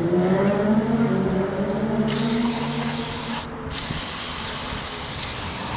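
Aerosol mass airflow sensor cleaner spraying onto a disassembled airflow meter: a hiss that starts about two seconds in, stops briefly, then sprays again.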